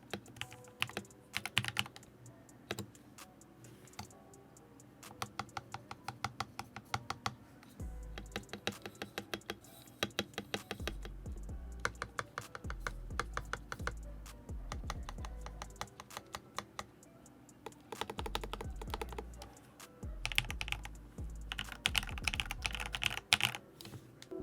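Typing on a Redragon Lakshmi K606R mechanical keyboard fitted with AKKO Matcha Green linear switches: runs of fast keystrokes with short pauses between them.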